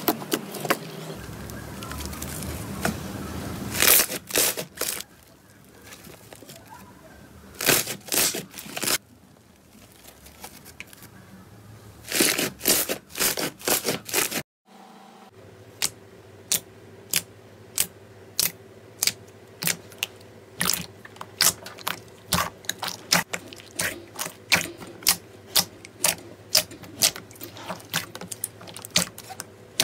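Hands squeezing and pressing slime: sticky crackling and squelching in short clusters, then, after a brief drop-out about halfway, a long run of sharp little pops and clicks, about two or three a second, as the slime is pressed and poked.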